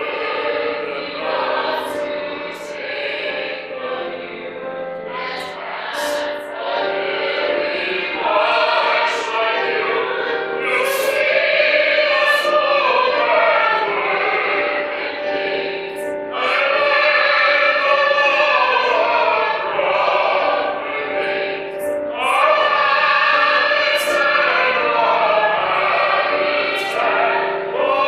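Musical-theatre cast singing together as a chorus with instrumental accompaniment, swelling louder about eight seconds in and again around sixteen seconds.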